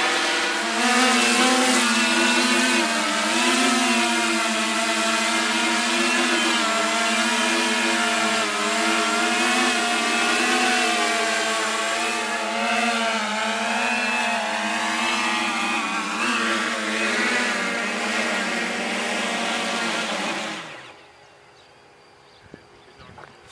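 Electric propellers of a Wingcopter hybrid VTOL drone hovering as it descends to land: a steady multi-tone hum whose pitch wavers as the rotors adjust. Near the end the propeller sound cuts off suddenly as the motors stop at touchdown, leaving faint background with a couple of small clicks.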